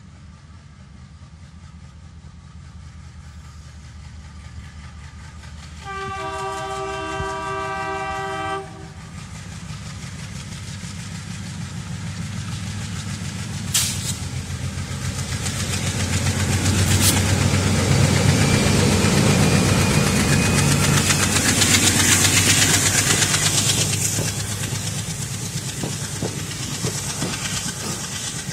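ALCO WDG3A diesel-electric locomotive working under load as it pulls a passenger train away and passes, its engine rumble building steadily. It sounds its multi-tone horn once for about three seconds a quarter of the way in, and the sound is loudest as it goes by. Near the end the coaches follow with clickety-clack of wheels over rail joints.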